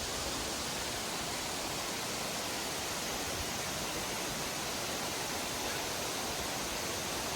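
Steady rush of a tall waterfall: water crashing down a cliff, an even noise with no breaks.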